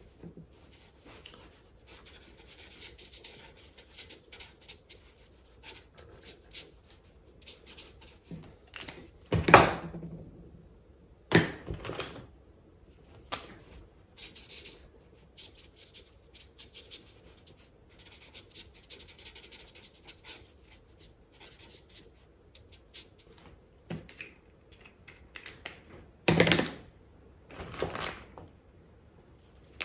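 Felt-tip marker scratching over sketchbook paper in many short strokes. A few louder knocks and clicks come in between, about a third of the way in and again near the end, as markers are handled.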